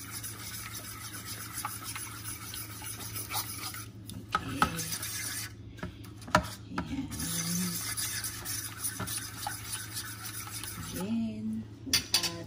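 Metal fork stirring and mashing a wet tuna-and-egg mixture in a ceramic dish, scraping steadily against the bottom with occasional sharp clinks of the fork on the dish. The tuna is being broken up as it is mixed in.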